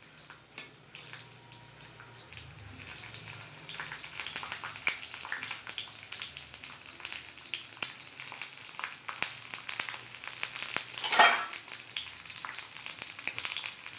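Green chillies and garlic sizzling and crackling in hot oil in a kadhai, the frying growing louder after a few seconds, with a brief louder burst about eleven seconds in. They are being fried well to take the raw sharpness out of the chillies and garlic for a thecha.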